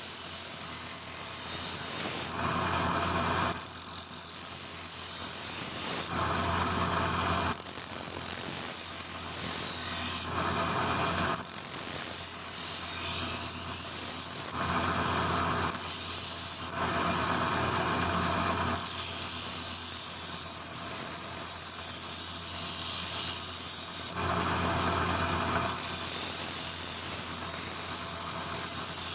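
Abrasive rasping and rubbing, like filing or sanding. The sound changes abruptly every one to three seconds, switching between a high scratchy hiss and a lower rasp with a low hum under it.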